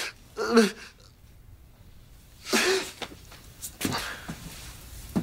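A man crying into his hand: a few short, muffled sobs and sniffs with quiet gaps between them.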